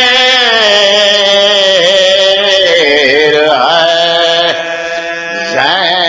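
A man singing an Urdu devotional recitation in long, drawn-out notes whose pitch wavers and bends. The voice breaks off briefly about four and a half seconds in, then takes up the next line.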